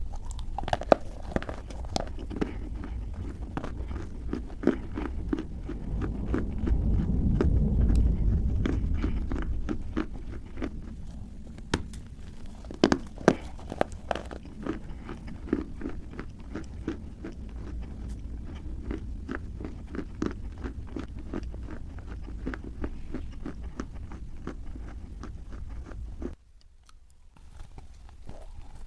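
Dry clay being bitten and chewed close to the microphone: a dense run of sharp crunches and small cracks over a low rumble, louder around the middle and pausing briefly near the end.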